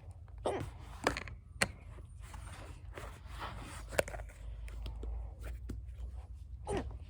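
Play-Doh tubs and tools being gathered up and put away: a few sharp clicks and knocks of plastic with light rustling between them.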